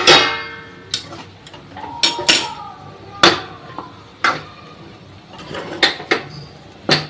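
A steel ladle stirs sabudana khichdi in a steel kadhai, knocking and scraping against the pan. Sharp metallic clinks come roughly once a second, some double and some with a short ringing tone.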